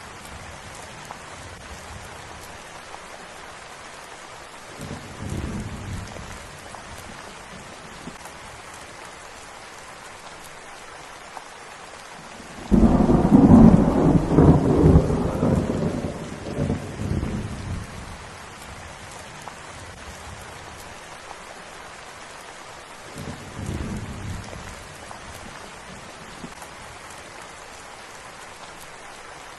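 Steady rain falling, with rolls of thunder. A faint rumble comes about five seconds in. A loud thunderclap starts suddenly about halfway and rumbles on for several seconds. Another soft rumble comes near the end.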